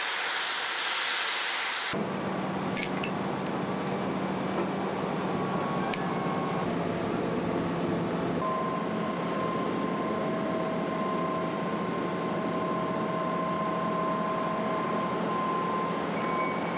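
An oxy-fuel cutting torch hisses as it burns through a steel piling beam for about the first two seconds. Then it cuts off, and a steady machine hum with a few held whining tones takes over: an excavator's engine and hydraulics running as it lifts the cut beam.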